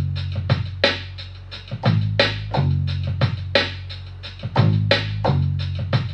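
A sampled beat played back through studio monitors: sharp drum hits, about three to four a second, over a deep held bass line whose notes change every second or two. The sounds are chopped samples from Logic's EXS24 sampler, triggered from a MIDI keyboard.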